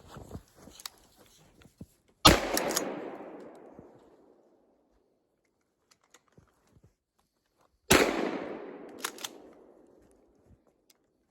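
Two gunshots about five and a half seconds apart, each followed by a long echo dying away over about two seconds. Faint clicks and handling noises come before and between them.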